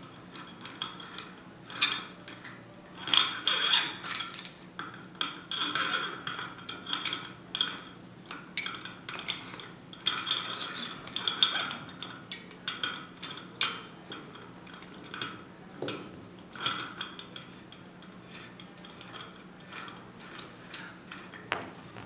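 Irregular metal clinks, clicks and scraping from a Posi Lock mechanical puller worked by hand, as its steel jaws are tightened down onto a part on a shaft.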